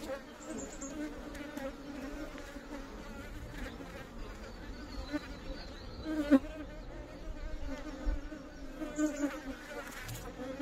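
Indian honeybees (Apis cerana indica) buzzing in a steady hum over an opened hive, the colony agitated by the disturbance. Light knocks of the wooden frames being shifted in the box, the sharpest about six seconds in.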